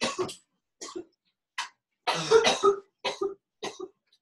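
A person coughing and clearing their throat in about six short bursts, the longest a little past two seconds in.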